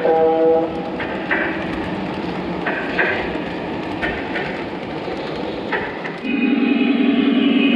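Lionel O-gauge passenger cars rolling on three-rail track: a steady metal-wheel rumble with scattered sharp clicks as the wheels cross rail joints and switches, after a pitched whistle cuts off in the first second. About six seconds in, a louder steady mechanical drone takes over.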